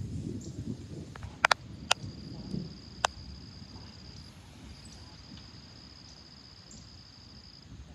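Insects such as crickets singing a steady high buzz that breaks off briefly twice. In the first three seconds there is a low rumble that fades out, and a few sharp clicks, the loudest about a second and a half in.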